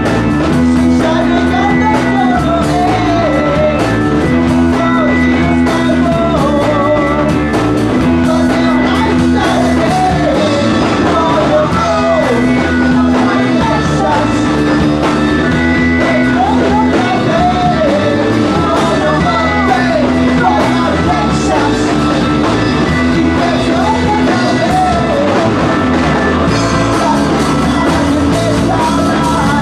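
Live rock band playing: electric guitar and drums under a man singing into a microphone, over a riff that comes round every two to three seconds.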